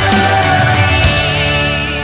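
Rock song playing as a video soundtrack, dense guitars over a steady bass line.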